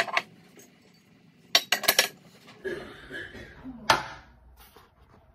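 Dishes and cutlery clinking as a dishwasher is unloaded: a sharp clink or two at the start, a quick run of clatters about a second and a half in, and one more near the end.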